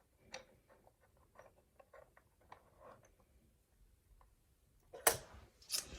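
Faint, scattered small clicks and scrapes of a lock pick and tension tool working in a BC1 lock core, followed by a louder brief rustle about five seconds in.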